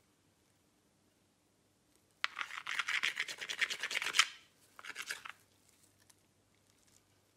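A metal coin scraped rapidly back and forth across the plastic back panel of a Samsung Galaxy A50, scratching it, for about two seconds. A shorter burst of scraping follows after a brief pause.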